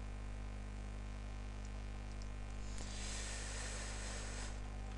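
Steady electrical mains hum with a faint hiss underneath. About three seconds in, a soft higher hiss rises and stops about a second and a half later.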